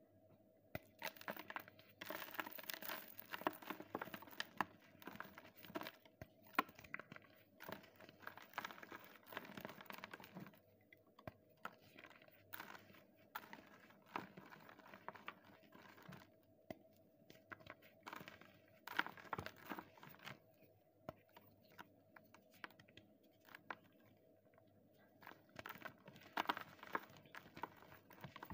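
Blocks of gym chalk crushed and crumbled between the fingers: dry crunching and crackling in irregular bursts. The bursts are dense for the first several seconds, then come in shorter clusters with pauses of a few seconds between them.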